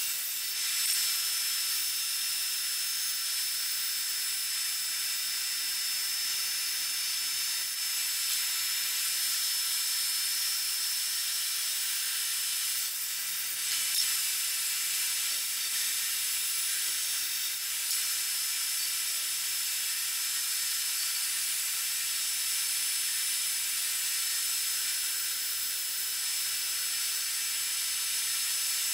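Bandsaw running with a shop vacuum pulling dust from it, while the blade cuts through half-inch cabinet board: an even, steady hiss that holds throughout.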